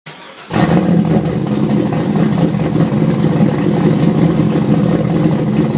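A car engine running steadily, starting abruptly about half a second in.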